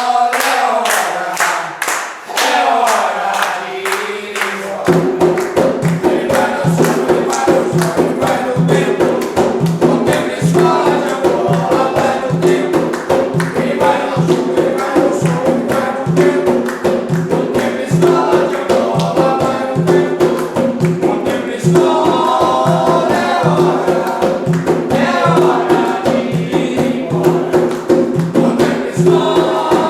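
Group of voices singing an Umbanda closing ponto, a song of leave-taking. Drums join about five seconds in with a fast, steady beat under the singing.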